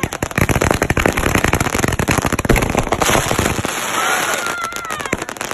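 Consumer fireworks finale going off: a dense, rapid string of crackling pops, turning into a steady hissing crackle about three seconds in.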